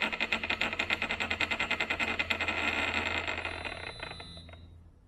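Motor of a home-built resin-print wash station running the clean alcohol bath, a rapid even pulsing of about eight beats a second over a steady hum. It fades and stops about four and a half seconds in as the timed wash cycle ends.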